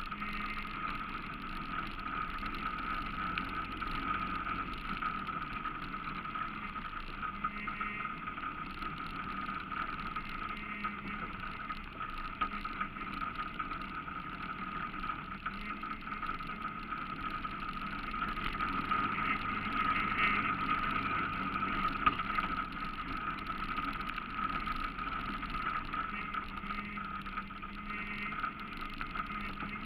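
ATV engine running steadily while riding slowly along a dirt trail, picked up by a camera mounted on the machine's front.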